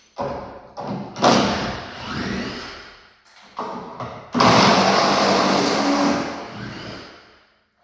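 Wooden crate and pallet boards being pulled apart by hand, scraping and creaking in four separate pulls, the longest and loudest starting a little past four seconds in.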